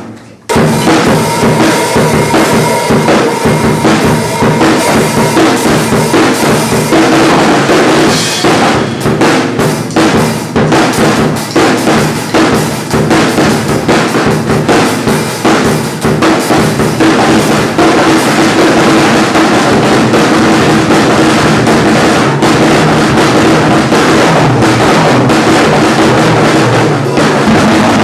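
Drum kit played in a fast solo: bass drum, snare and cymbals struck in dense, rapid strokes, loud and close, starting about half a second in.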